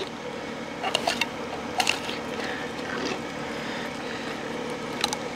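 Fillet knife cutting and scraping along a sheepshead's rib bones as the meat is worked off the rib cage: a few soft clicks and scrapes over a steady low background hum.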